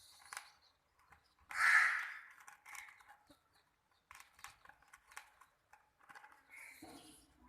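Chickens making a few short calls and clucks, the loudest about one and a half seconds in, with scattered clicks between them.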